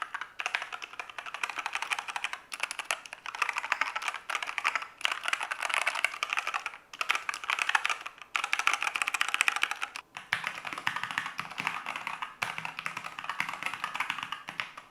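Freshly assembled budget mechanical keyboard, with foam fitted inside, being typed on quickly: a dense clatter of key presses in runs of one to three seconds, with brief pauses between runs.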